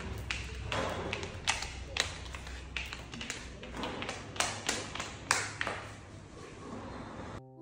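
A toddler's sandals tapping and slapping on a hard tiled floor in irregular footsteps, over a steady low hum. The sound cuts off abruptly near the end.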